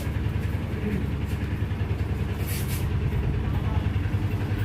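Motor vehicle engine running steadily, a low pulsing rumble, with a brief hiss about two and a half seconds in.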